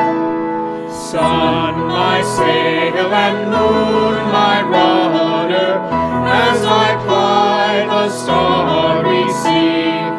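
Congregational hymn singing: a man's voice leads, with other voices joining, over piano accompaniment. The piano holds a chord for about the first second before the singing comes in.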